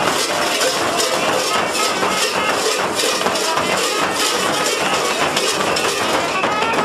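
Large frame drums beaten in a quick, steady rhythm with a bright jingling over the beat, as mummers' folk music.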